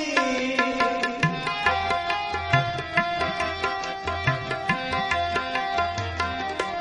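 Instrumental interlude of a devotional shabad: tabla strokes, the low drum sliding up in pitch, under a melody of plucked strings and held tones. A held sung note trails off in the first second.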